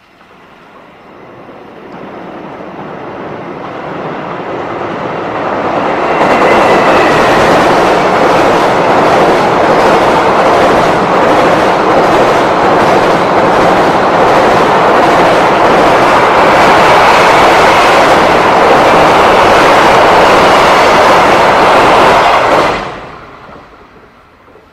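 JR Freight freight train approaching and crossing a railway bridge. The rumble builds over the first six seconds into a loud, steady clatter of wheels over rail joints, then breaks off suddenly near the end.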